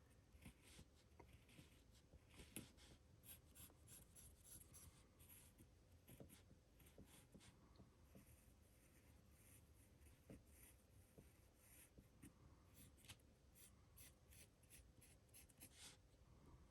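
Very faint, irregular scratching of a Montblanc 221's very fine fountain-pen nib being rubbed on an emery board to smooth it, the nib catching on the surface.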